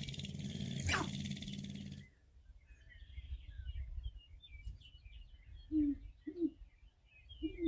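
Male sharp-tailed grouse on a lek: squeaky chattering calls, then near the end three short low coos about half a second to a second apart. The first two seconds are covered by a louder rushing noise with a few quick downward-sweeping squeals, which cuts off abruptly.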